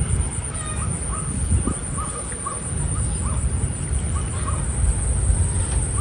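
A bird calling in a quick series of short, hooked notes, about a dozen of them two or three a second, stopping about a second before the end, over a steady low rumble.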